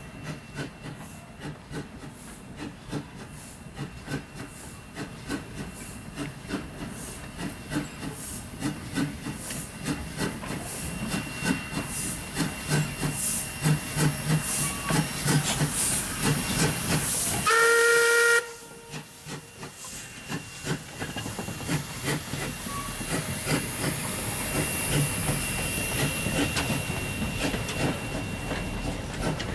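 Steam locomotive NM25 working past with steady exhaust beats that grow louder as it approaches. About two-thirds of the way through it gives one loud whistle blast of about a second, a chord of several tones, then its carriages roll past.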